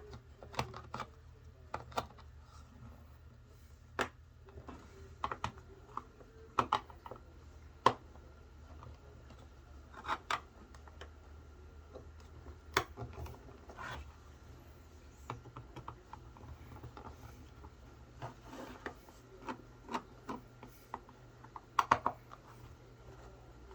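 Screwdriver poking and prying at the plastic case of a handheld cell phone: irregular small clicks, ticks and scrapes, a few sharper snaps among them.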